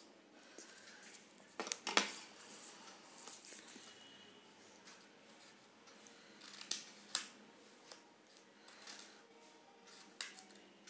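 Paper scissors snipping slits into the edge of a paper sheet: a handful of short, sharp snips a few seconds apart, with faint paper handling between them.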